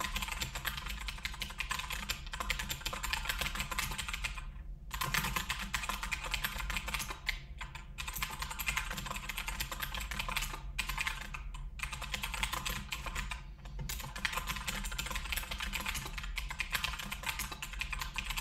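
Typing on a computer keyboard: a quick, continuous patter of key clicks, broken by a few brief pauses.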